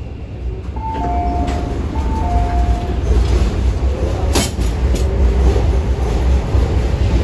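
MTR C-train metro car's wheels and traction running, heard from inside the car as a loud low rumble that grows louder about a second in. A two-note high-low chime sounds twice in the first few seconds, and a sharp click comes about four seconds in.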